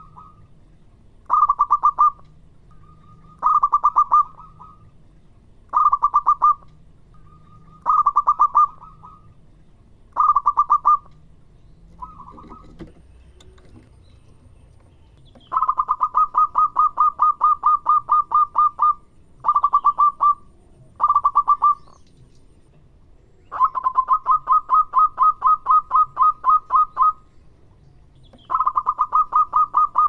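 Zebra dove (perkutut) singing its rapid cooing song. Short trains of quick staccato notes come about every two seconds, then a short pause, then longer runs of notes, at about six a second, from about halfway through.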